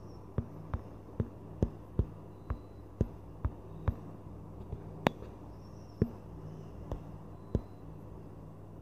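A series of sharp clicks or taps, unevenly spaced at about one or two a second and loudest about five seconds in, over a steady low hum.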